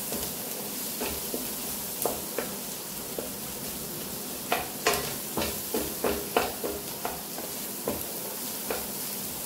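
Vegetables, egg and chicken sizzling steadily in a pan on high flame while being stir-fried, the spatula knocking and scraping against the pan at irregular moments.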